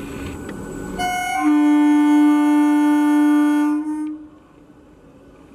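EMU local train's air horn: a brief higher note about a second in, then a long, loud, steady lower note held for about two and a half seconds that cuts off sharply, over the running noise of the train.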